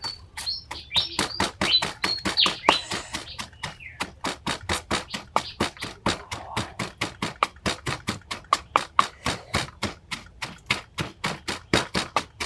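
Rapid, evenly spaced chopping strikes, about five a second, with birds chirping over the first three seconds.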